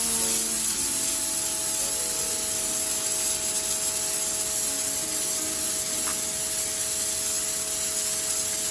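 Pressure washer blasting a narrow jet from a red zero-degree tip onto a concrete slab to lift a dark stain: a steady, unbroken spray hiss with a faint steady hum underneath.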